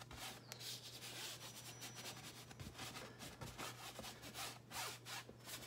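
Large paintbrush loaded with thin oil wash swept across a stretched canvas in big strokes: faint, repeated scratchy brushing.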